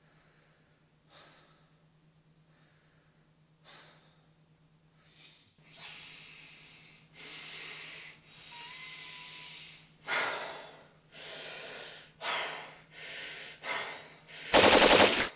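A man breathing heavily, each breath a separate noisy stroke, getting louder and faster as the breaths come closer together. A sudden loud burst about a second before the end is the loudest thing. A faint steady low hum runs underneath.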